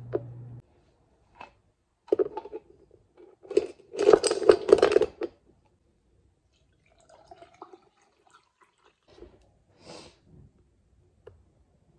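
Ice cubes clattering into a tall glass for a few seconds from about two seconds in. Then softer sounds of bottled iced coffee and creamer being poured into it, with bottle handling.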